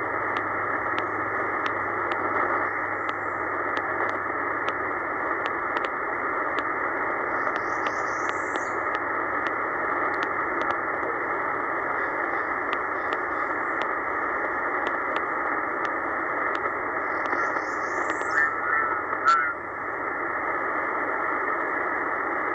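Shortwave band noise from a Tecsun PL-990x receiver in upper sideband mode: a steady hiss, narrowed by the sideband filter, as the tuning knob is turned down through the 13 MHz band. Small clicks come in a loose string as the tuning steps, and no clear station comes through.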